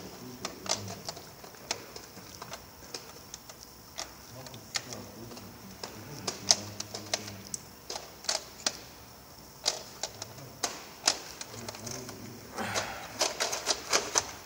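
Irregular sharp plastic clicks as small parts are pressed by hand into black plastic trays, a few each second, coming thick and fast near the end.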